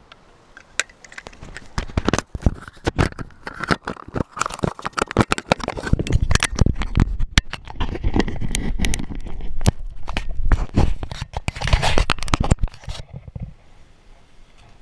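Handling noise from fingers rubbing and knocking on the camera right at its microphone: a rapid, irregular run of scrapes, rustles and clicks that starts about two seconds in and stops about thirteen seconds in.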